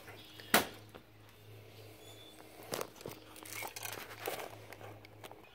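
Handling noise of a phone camera being picked up and moved: a few sharp clicks and knocks and soft rustling, over a low steady hum that stops shortly before the end.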